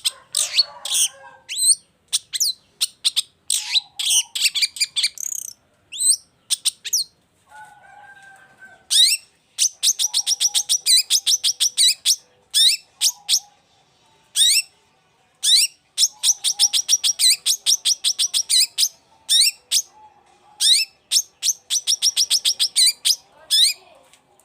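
Long-tailed shrike (cendet) singing loudly: high, sharp chattering notes, broken three times by rapid runs of repeated notes.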